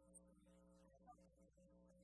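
Very faint music, barely above silence, with sustained notes that break off and resume every half second or so.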